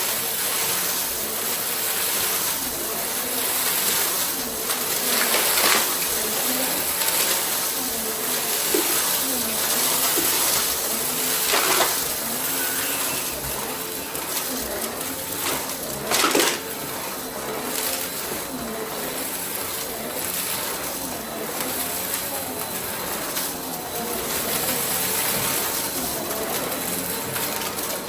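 Goodmans TurboMax vacuum cleaner running with a steady rushing suction noise and a steady high whine, broken by a few sharp clicks.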